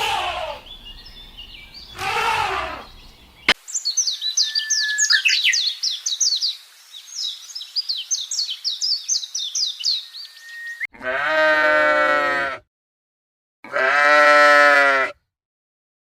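A few short animal calls falling in pitch, then about seven seconds of rapid high bird chirping, then two long sheep bleats near the end.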